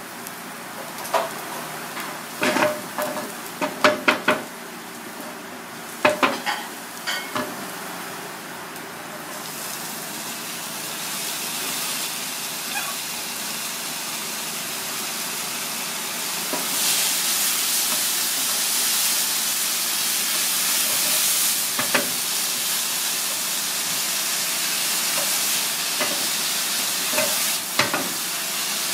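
Frying in a pan: several sharp knocks at first, then from about ten seconds in a steady sizzling hiss of minced garlic in oil, which grows louder a few seconds later as diced vegetables are tipped in and stirred, with a few more spatula knocks on the pan.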